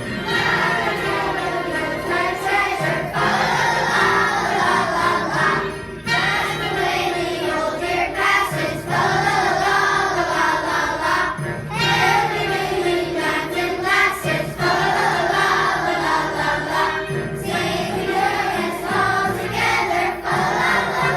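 A school choir singing a holiday song with instrumental accompaniment, in phrases of about three seconds with short breaths between them.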